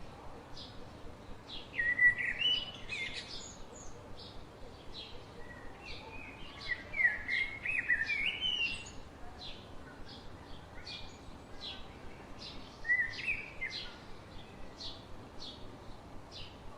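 Songbirds singing: short high chirps repeat steadily a few times a second, with louder warbling song phrases breaking in about two seconds in, again around six to nine seconds, and once more near thirteen seconds.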